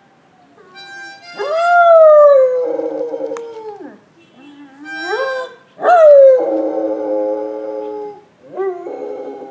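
Great Dane howling along to a harmonica: two long, loud howls, each rising and then sliding down in pitch, about two and six seconds in, between short held harmonica chords.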